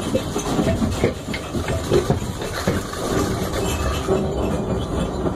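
Earthquake simulator running a simulated 1906 San Francisco earthquake: a continuous deep rumble with rattling and knocking throughout.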